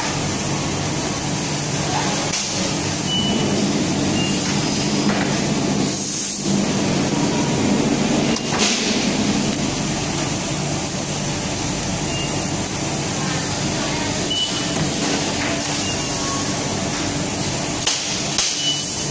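Semi-automatic solder-mask LED exposure machine and its workshop running: a steady hum and hiss, with a few sharp clicks and short bursts of hiss.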